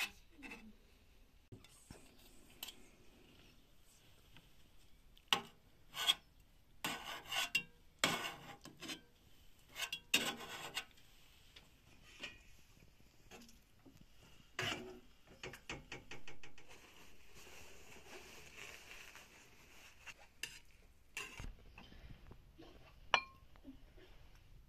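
Metal tongs clinking and scraping against a metal tray and cooking pot while stuffed peppers and tomatoes are lifted out, in scattered short clatters with one sharp click near the end.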